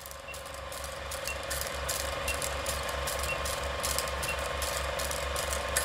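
Old film projector clattering steadily, with a short high beep once a second, five beeps in all, counting down.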